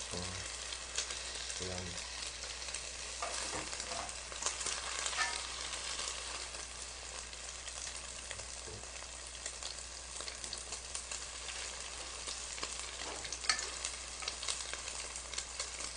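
Egg-battered pollock fillets frying in oil in an electric pot: a steady sizzle, with a few faint clicks of chopsticks working in the pan.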